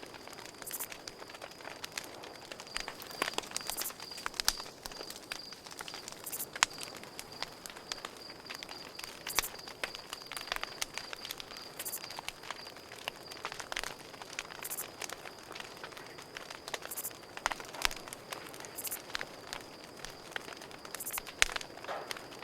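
Campfire crackling with irregular sharp pops and snaps, over the steady high pulsing trill of crickets.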